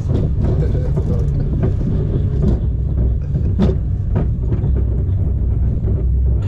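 Hundeprutten roller coaster train running on its track, heard from on board: a steady low rumble with several short knocks.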